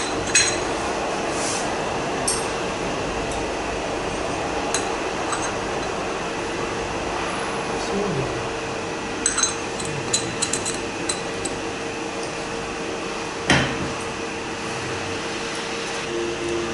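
Scattered metal clinks and taps as parts and tools are handled while a feed pump is fitted onto a Delphi diesel high-pressure fuel pump, with the sharpest knock about two-thirds of the way through. A steady workshop hum runs underneath.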